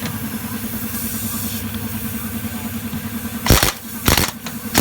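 A 1-inch pneumatic impact wrench fired in three short bursts over the last second and a half, each a sharp hissing, hammering blast. An engine or compressor runs steadily underneath throughout.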